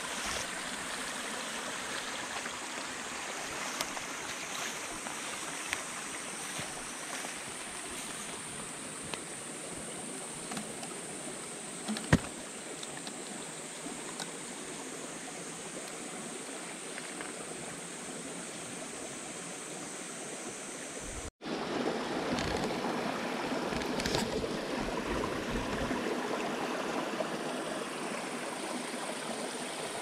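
Mountain stream rushing steadily, with a steady high-pitched chorus of night insects over it. A sharp click about twelve seconds in, and after an abrupt cut about two-thirds through, the water is louder.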